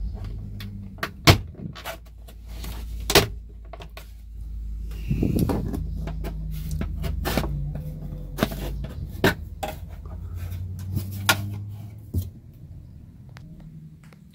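Plastic dash trim on a 2005 Ford Super Duty being pried loose with a plastic pry tool: a string of sharp clicks and snaps as the retaining clips pop free, over a low rumble that stops about two seconds before the end.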